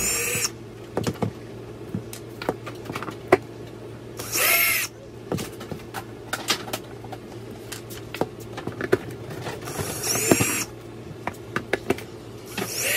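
RIDGID cordless drill running in four short bursts on the screws of a table-pedestal base plate, each burst a whine that rises and falls, about four seconds apart. Light clicks and taps of screws and the metal base being handled fall between the bursts.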